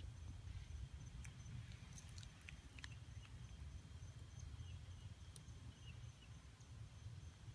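Near silence: faint outdoor ambience, with a steady high-pitched insect trill, a low rumble and a few faint scattered ticks.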